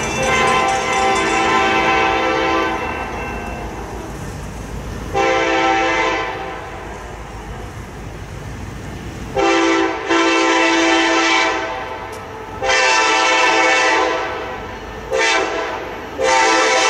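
Locomotive air horn on an approaching freight train, sounding a chord in a series of blasts: a long blast fading in the first few seconds, a short one about five seconds in, then, from about nine seconds in, long, long, short, long, the grade-crossing signal, with the last blast held on. A low rumble from the train is heard between the blasts.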